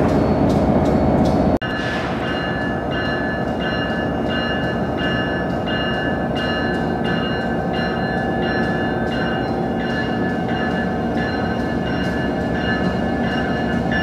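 Amtrak AEM-7 electric locomotive approaching slowly through the station, a steady running sound with several held tones and a regular pulse about twice a second. A louder passing train is cut off abruptly about a second and a half in.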